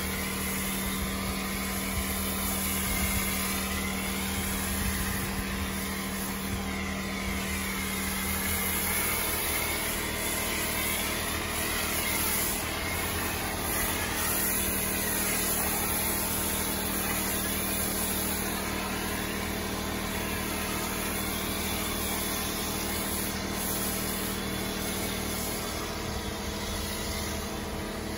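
Pressure washer running with a steady motor hum under the hiss of a foam cannon spraying soap foam onto a vehicle.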